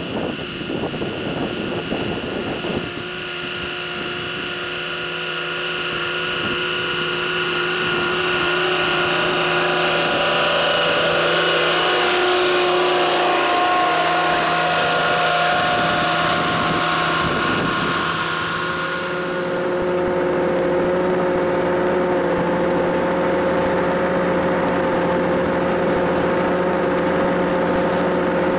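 The engine of a New Holland Braud SB 64 high-clearance carrier running steadily while it lays plastic film over asparagus ridges. A low hum is overlaid by a whine of several steady tones, whose pitch shifts about three seconds in and again about two-thirds of the way through.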